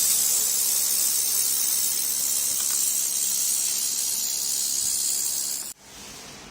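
Handheld laser welding gun hissing steadily as it welds stainless steel, with shielding gas blowing from the nozzle; the hiss cuts off suddenly near the end.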